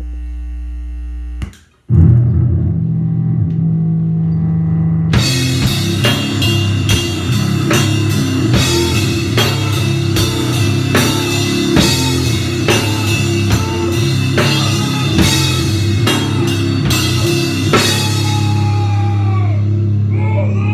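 Live powerviolence punk band: a steady low hum cuts off, heavy distorted guitar and bass notes come in about two seconds in, and the drum kit with crashing cymbals joins about five seconds in, hitting in a steady pounding rhythm. Near the end guitar notes bend downward.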